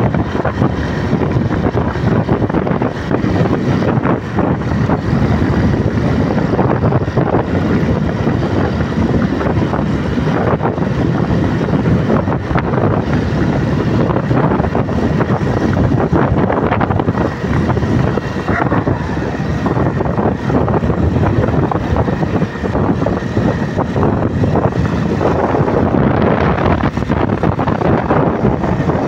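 Wind rushing over the microphone of a phone carried on a moving motorcycle, mixed with the motorcycle's engine and road noise, loud and steady throughout.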